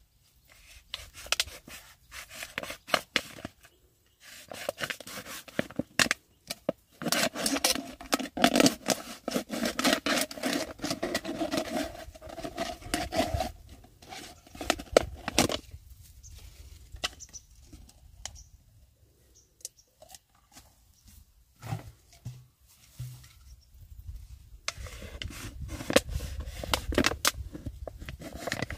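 Plastic bottles being cut and handled to make fish traps: irregular snipping, scraping and rubbing with sharp clicks. It is busiest through the middle, eases off for a stretch, then picks up again near the end.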